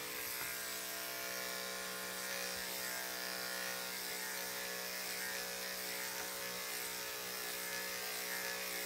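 Corded electric dog-grooming clipper running with a steady hum while it trims a small dog's coat; it stops right at the end.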